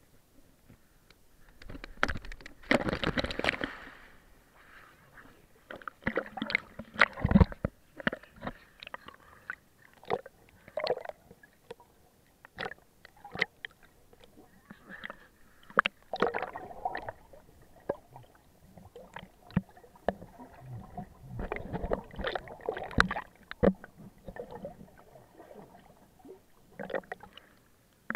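Water splashing, sloshing and gurgling as a bull terrier swims and paddles, heard at and under the surface by a camera dipping in and out of the water. The splashes come irregularly, in bursts.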